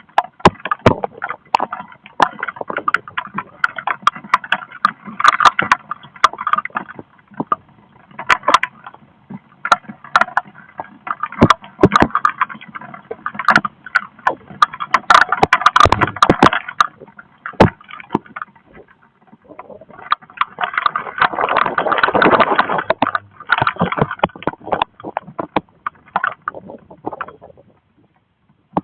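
Heavy rain and gusting wind from a squall line, with many sharp taps and knocks of drops striking close by. The rain noise swells and fades unevenly, loudest about three quarters of the way through.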